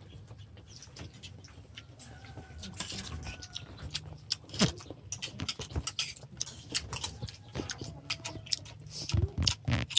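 Eating sounds: a spoon clicking and scraping on a plate, with chewing close to the microphone, as scattered irregular clicks and light clatter.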